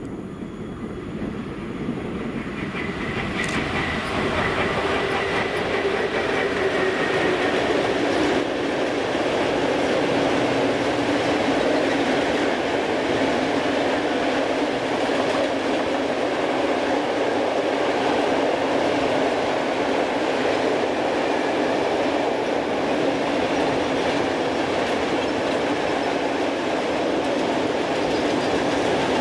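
Freight train of white powder tank wagons behind an electric locomotive rolling past, with a steady rumble and clatter of wheels on rail. The sound grows louder over the first few seconds, then holds steady as the wagons go by. A faint whine is heard during the first several seconds.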